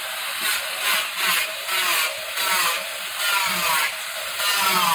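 Hand-held angle grinder running against the edge of a laminated plywood panel, trimming and finishing the laminate edge. Its pitch dips and its loudness swells in repeated strokes, about twice a second.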